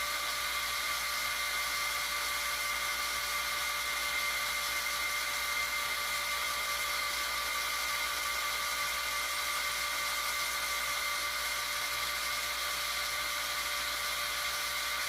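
Power drill running steadily with a high, even whine as it drills into a cast iron casting. The bit is wandering off its mark because no center hole was started.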